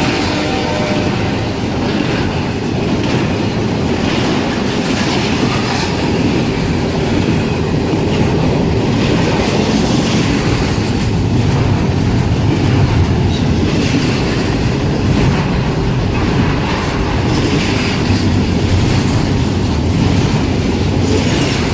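Freight train cars rolling past, a steady loud rumble with the wheels clicking over rail joints.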